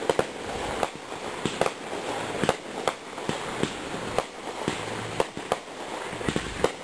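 Fireworks going off in quick succession: an irregular run of sharp bangs and pops, about two a second.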